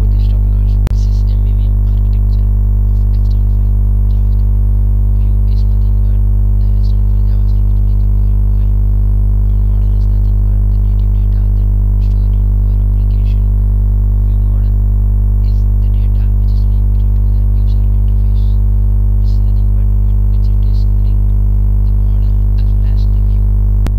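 Loud, steady electrical mains hum: a low buzz with a ladder of overtones that holds unchanged, with only faint ticks and hisses above it.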